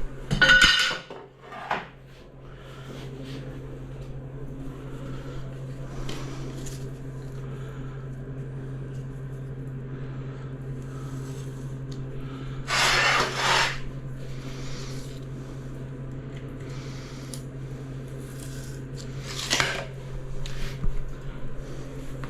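Tile and tools being handled: a few short scrapes and knocks, one lasting about a second midway, over a steady low hum.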